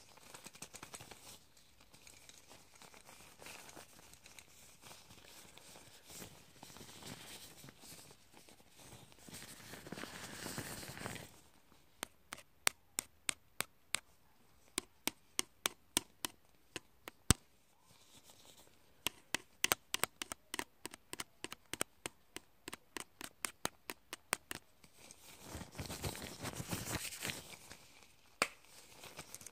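Close-up rustling and scraping of hands and eyebrow-grooming tools, then two spells of sharp small clicks, about two or three a second, and more rustling near the end.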